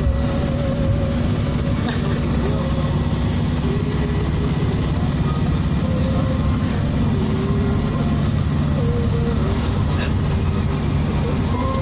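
A steady low rumble at an even level throughout, like a running vehicle or machine, with faint wavering tones drifting in and out above it.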